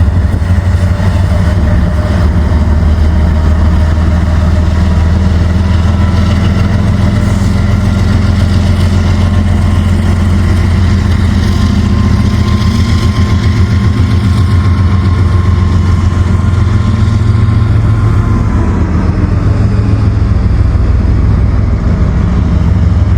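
Diesel locomotive engine running steadily, with a deep even pulse and a faint whine that fades out about three-quarters of the way through, as a switching train makes a reverse move.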